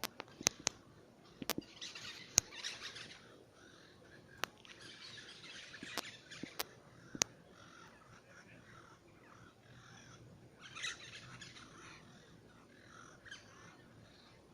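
Birds giving harsh, chattering calls in several bursts of a second or two each, with sharp single clicks scattered between them.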